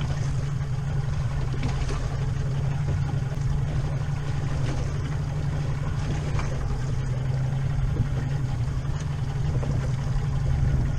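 Boat engine running steadily at low speed, a constant low hum with a hiss of wind and water over it.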